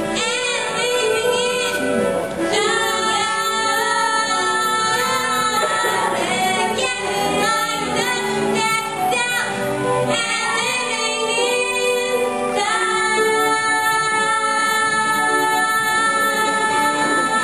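A young female singer's voice singing a show tune over backing music, with long held notes.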